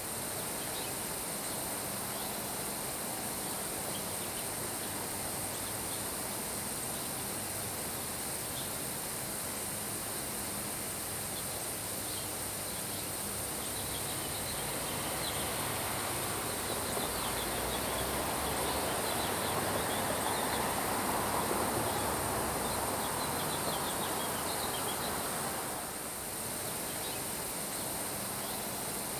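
Steady summer rain shower with wind, falling on grass as an even hiss with short high ticks over it; the sound swells for several seconds just past the middle, then settles again.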